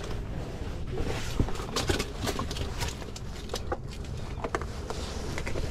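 Handling noise: scattered light taps and knocks as a caught snook is handled among rocks by a gloved hand, over a steady low rumble.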